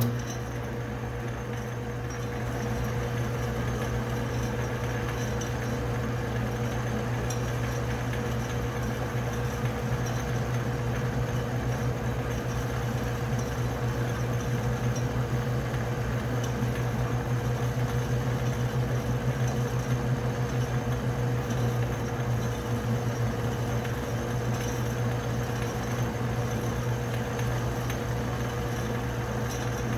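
Metal lathe running steadily with a constant motor hum, taking the final cuts to bring a part to size.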